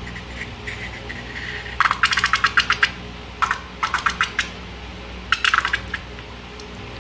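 Three bursts of rapid, sharp clicking and rattling from small hard objects, each lasting from about half a second to a second, over a steady low hum.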